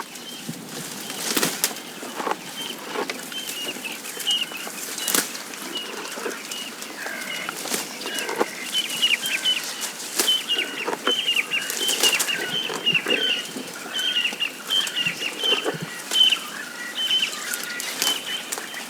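A flock of small birds chirping: many short, high chirps over frequent rustles and taps, growing busier about halfway through.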